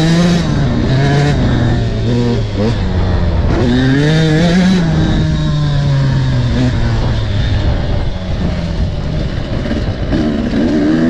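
300 cc two-stroke fuel-injected (TPI) enduro motorcycle engine being ridden hard, revs rising and falling with the throttle: climbing about half a second in and again around four seconds in, easing off in the middle, and picking up again near the end. The engine is being run hard to blow out sour two-stroke gunk.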